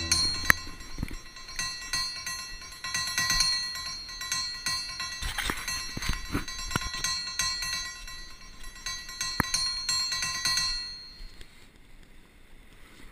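Quiet passage of background music: held bell-like tones with scattered sharp ticks, fading away about two seconds before loud drum-led music comes in.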